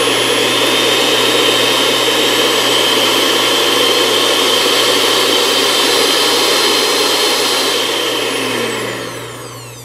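HOMEJOY 5-speed electric hand mixer running unloaded in the air with its two beaters spinning: a steady high motor whine and whir. About 8 seconds in, the pitch glides down and it grows quieter as the mixer is switched to a lower speed.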